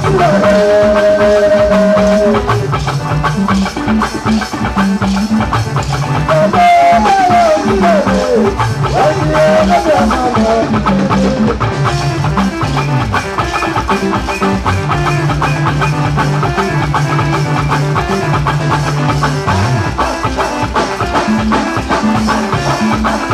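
Band music with a steady beat and a bass line under it. A sliding melody line comes in about seven seconds in.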